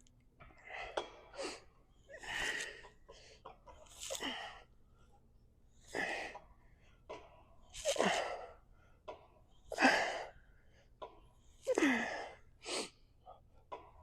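A man's forceful exhales and short grunts, one with each rep of a weight-lifting set, about seven of them evenly spaced roughly two seconds apart.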